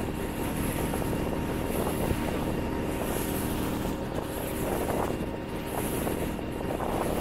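Motorboat engine running steadily, with wind noise on the microphone.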